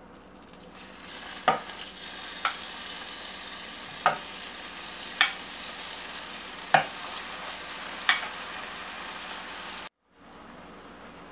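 Marinated shrimp sizzling in a hot frying pan. Each time another shrimp is laid in there is a sharp, loud hiss that dies away, six in all, over a building steady sizzle. After a brief cut, a pan full of shrimp frying with an even sizzle.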